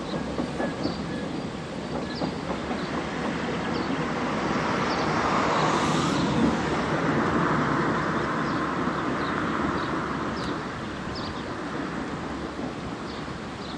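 Narrow-gauge Ffestiniog Railway steam train passing at a distance, the locomotive working with steam exhaust and the carriages running on the rails. The rumble swells to its loudest about halfway through, then fades as the train moves away.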